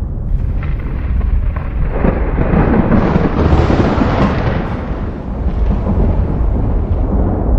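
Thunder rumbling continuously, with a clap that swells about two seconds in and rolls away over the next few seconds.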